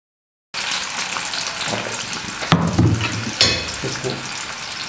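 Cut lemon pieces sizzling as they fry in hot coconut oil in a kadai. The sizzle starts abruptly about half a second in, with two sharp cracks at about two and a half and three and a half seconds in.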